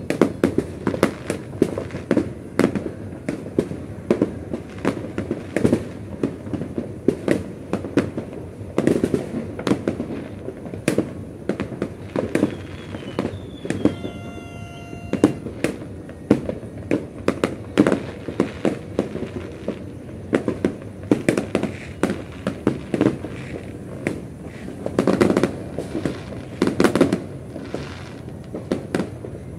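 Many fireworks and firecrackers going off in rapid, irregular bangs, with a brief whistling tone about halfway through and a denser cluster of bangs near the end.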